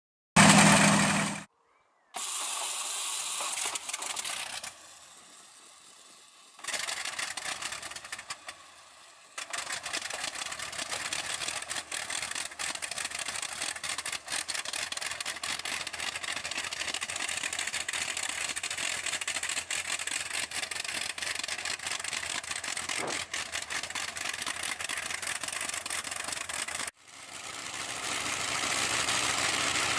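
Radial aero piston engine on a test trailer starting up and running with its propeller turning: a short loud burst just after the start, then broken stretches of engine noise, then a steady rough running sound with rapid firing pulses. It cuts off sharply near the end and comes back rising, louder.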